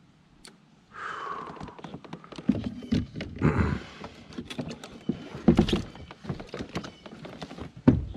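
A small northern snakehead is netted beside a plastic fishing kayak: a splashy wash for the first few seconds, then a rapid, irregular run of knocks and thumps as the landing net and gear bump against the hull, the loudest about five and a half seconds in and just before the end.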